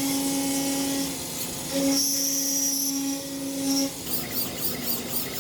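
Machine tool motor running with a steady whine that stops briefly and starts again. From about four seconds in it gives way to a quick rhythmic pulsing, about four beats a second.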